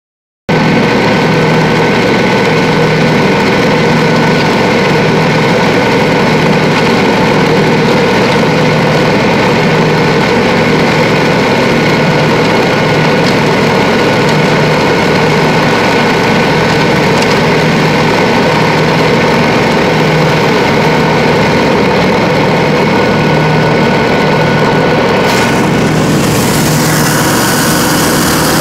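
Dixie Chopper zero-turn mower running steadily at speed with its engine humming. About 25 seconds in, a rushing hiss joins as the mower deck runs into a pile of dry leaves and chops them.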